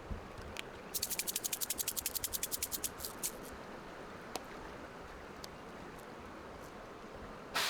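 A fast, regular run of sharp, dry clicks lasting about two seconds and slowing at the end, over a steady rushing hiss from a small creek. A short rushing burst comes near the end.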